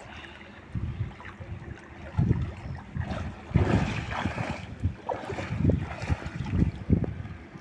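Water sloshing and splashing in irregular surges as a person wades through knee-deep river water, dragging a heavy body along the surface.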